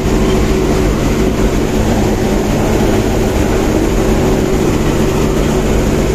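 Ideal combine harvester running steadily while harvesting oats, heard from inside the cab: a loud, even drone of engine and threshing machinery with a steady low hum.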